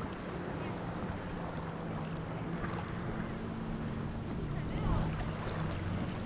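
Beach ambience: a steady wash of shallow surf and wind, with a low steady hum underneath.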